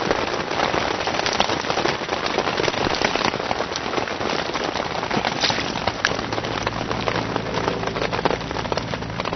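Heavy rain falling on a tent: a dense, even rush of drops with many sharper individual hits.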